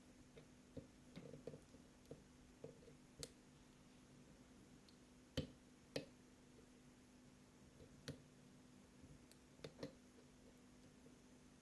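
Faint, irregular clicks of a lock pick and tension wrench working the pins of a 5-pin Iseo lock cylinder, with the two sharpest clicks about halfway through.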